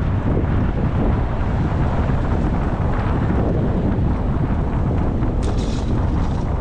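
Wind rushing steadily over the microphone of a camera on a moving bicycle, with street traffic underneath. A brief higher rustle comes about five and a half seconds in.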